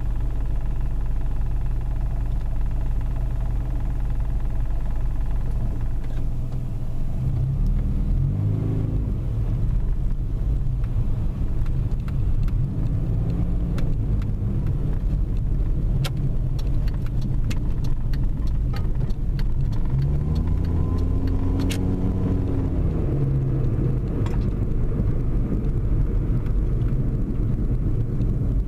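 Car engine heard from inside the cabin, idling steadily at first, then pulling away about six seconds in, its pitch rising and dropping several times as it accelerates through the gears, over a steady road rumble. A few sharp clicks come in the middle stretch.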